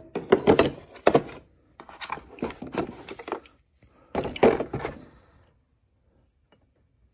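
A 4-ton bottle jack and its carry case being handled: several bursts of clatter, knocks and clicks.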